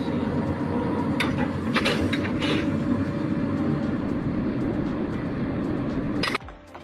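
A heavy engine or machine running steadily, with a few sharp knocks about one to two and a half seconds in. It cuts off suddenly near the end.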